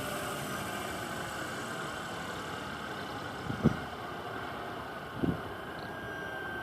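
Scale RC helicopter running with a steady rushing noise and a faint high whine that slides slightly lower near the end. Two short knocks stand out, about three and a half and five seconds in.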